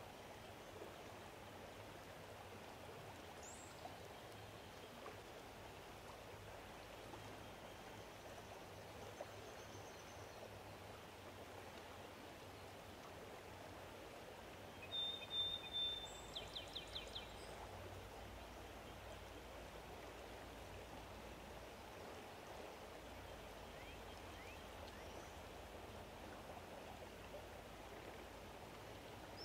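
Faint, steady outdoor ambience, an even hiss, with a bird calling about halfway through: one short high note, then a quick run of about six notes. A couple of faint high chirps come early and near the end.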